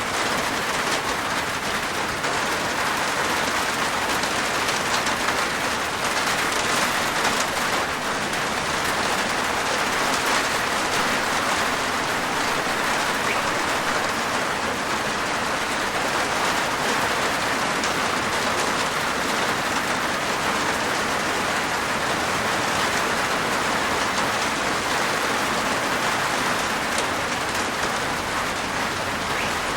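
Steady rain falling on a rooftop: a dense, even patter of raindrops with individual drop hits flecked through it.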